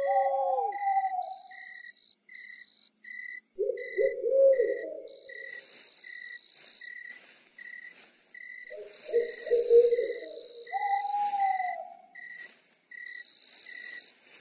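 Night-time forest sounds: crickets chirping in an even pulse about twice a second, with stretches of higher insect trilling over it, and owl hoots and calls around four and again around ten seconds in.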